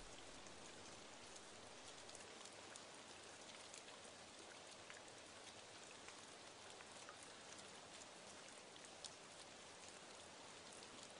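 Faint, steady light rain, with scattered drops ticking.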